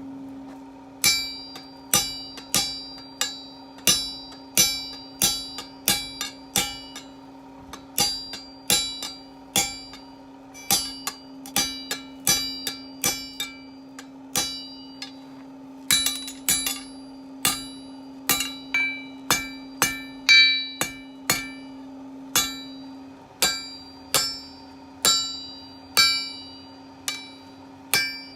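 Blacksmith's hammer striking hot steel on an anvil, about one to two blows a second, each blow ringing, with a short break about halfway through. A steady hum runs underneath.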